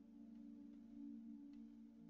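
Faint, steady drone of sustained low tones, like quiet ambient background music.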